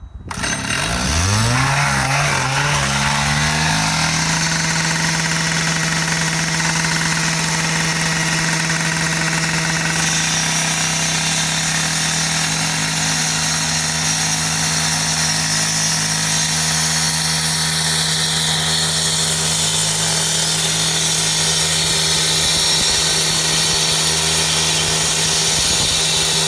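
Gas-powered saw cutting the asphalt edges of a road patch. It revs up over the first few seconds, then holds one steady high pitch under a harsh cutting noise.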